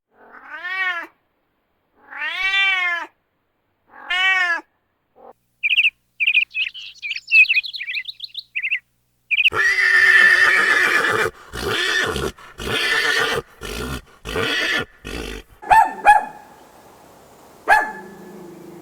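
A series of animal calls: three pitched calls that rise then fall, then a quick run of short high chirps, then several harsher, rougher calls with pauses between them.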